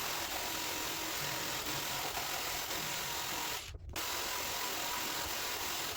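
Power tool cutting wood, running steadily. It breaks off for a moment about two-thirds of the way through.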